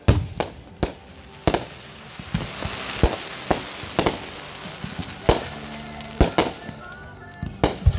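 Fireworks display: about a dozen sharp bangs of bursting shells at irregular intervals, with crackling and hissing between them.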